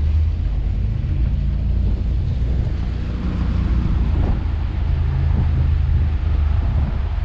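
Sea Ray 480 Sedan Bridge motor yacht running at cruising speed: a steady low engine drone, with wind buffeting the microphone and water rushing past the hull.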